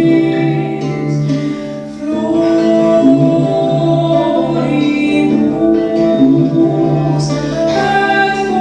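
Live medieval-style folk music: long held sung notes over instrumental accompaniment, with a brief dip about two seconds in.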